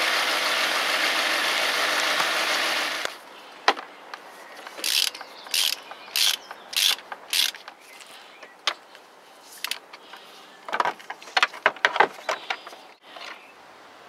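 Volkswagen 2.3 V5 petrol engine idling with a misfire on one cylinder, stopping suddenly about three seconds in. A ratchet wrench then clicks in two runs of quick strokes as the spark plugs are undone.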